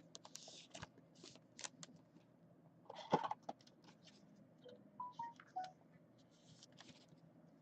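Faint handling of trading cards: soft rustles and light clicks as cards are slid and moved, with a louder handful of rustles about three seconds in. A few brief soft tones at different pitches sound around five seconds in.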